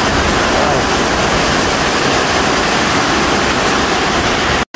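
Heavy tropical downpour: a steady, loud hiss of rain on a corrugated metal roof and pouring off its edges. The sound cuts out to silence for a moment near the end.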